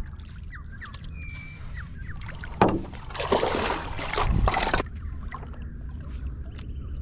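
Stand-up paddle board paddle working in shallow water, then a sharp knock about two and a half seconds in and a couple of seconds of loud splashing and scuffing as the paddle is laid down on the board deck.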